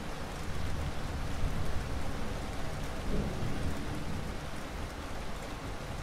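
Thunderstorm: steady rain falling with a low rumble of thunder underneath, swelling about halfway through.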